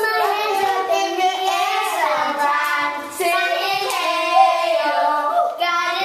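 A child singing a melody with long held notes.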